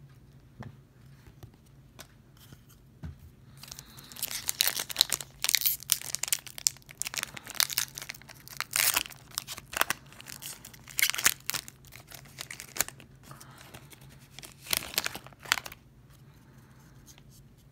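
Foil wrapper of an Upper Deck Artifacts hockey card pack being torn open and crinkled, in a dense run of crackling bursts starting about four seconds in and another short burst near the end. A few faint taps from card handling come before it.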